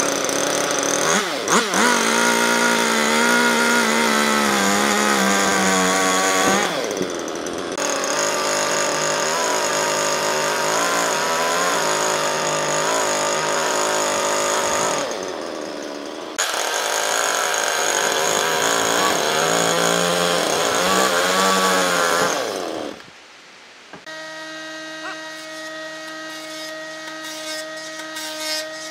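Husqvarna two-stroke chainsaw running hard as it cuts through a log, its pitch wavering under load and easing off twice before the engine winds down near the end. Then an electric jointer starts and runs with a steady hum.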